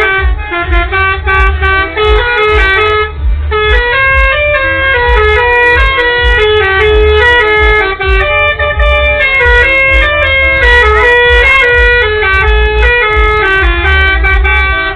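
Telolet bus horns: a set of air horns playing a fast tune, the notes changing in sharp steps several times a second, over a low steady rumble.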